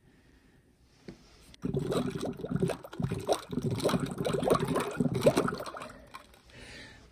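Water sloshing and gurgling, starting about a second and a half in and dying away near the end.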